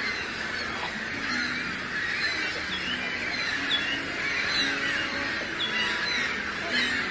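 A flock of birds calling over one another in a dense, unbroken chorus of honking calls like geese.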